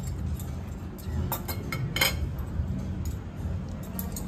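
Tableware clinking a few times, plates and cutlery touching, over a steady low dining-room hum.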